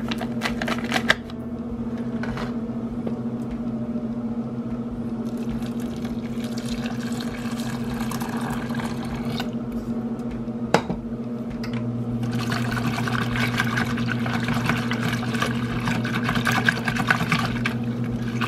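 Powdered gravy mix shaken from a paper packet into a plastic bowl, then water poured in, then a wire whisk beating the mix against the sides of the plastic bowl from about twelve seconds in. A steady electrical hum runs underneath.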